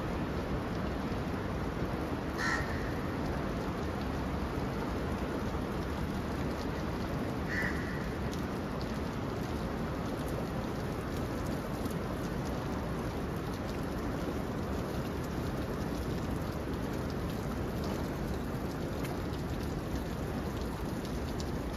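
Steady rain falling, with two short calls about two and a half and seven and a half seconds in.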